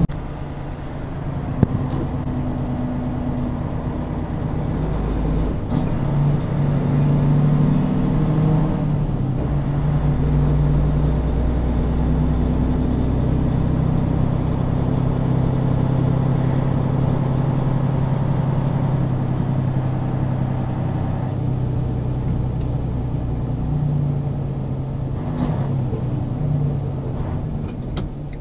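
Big-rig truck's diesel engine running under way, heard from inside the cab over steady road noise. The engine note rises and falls as the truck pulls away and changes speed.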